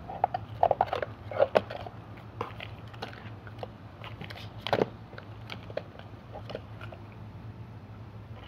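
Plastic packaging crinkling and clicking as tackle items are handled and sorted through: a cluster of crackles in the first two seconds, another sharp crackle about five seconds in, then fainter scattered ticks.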